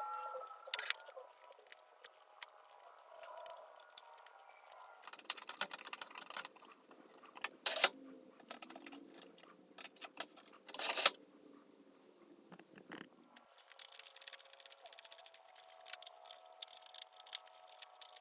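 Scattered metal clicks, clinks and knocks of table saw parts and hardware being handled during reassembly, with sharper knocks about a second in, about eight seconds in and about eleven seconds in.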